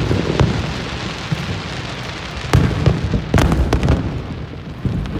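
Aerial fireworks going off: deep booming shell bursts and sharp cracks, the clearest about two and a half and three and a half seconds in, over a continuous crackling hiss.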